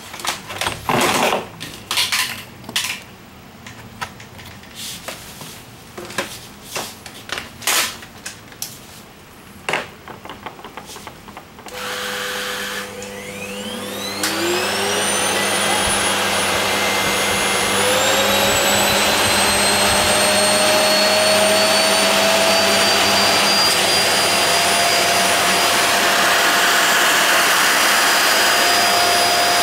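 Clicks and knocks of handling, then about twelve seconds in a small electric motor appliance starts on the transformer's 100 V output. Its whine rises as it spins up, steps up again a few seconds later, and then runs steadily at full speed.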